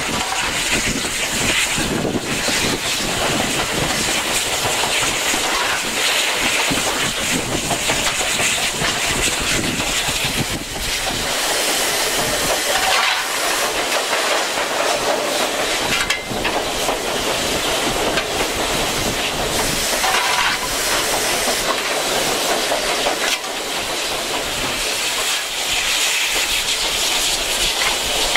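Footplate noise of a GWR King class four-cylinder 4-6-0 steam locomotive under way: a loud, steady hiss and rush of steam over the running of the engine, with occasional knocks and wheel clatter over the rail joints.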